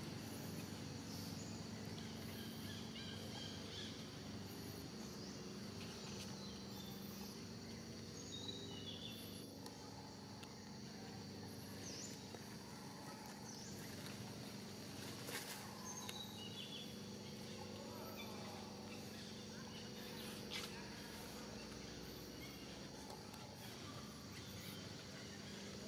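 Forest ambience: a steady high insect drone with scattered short bird chirps over a low steady hum, and a couple of sharp clicks midway.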